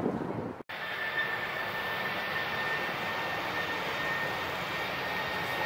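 Boeing 737 airliner's jet engines running as it rolls along the runway: a steady rush with a high, steady whine. The sound drops out suddenly for an instant a little under a second in, at an edit.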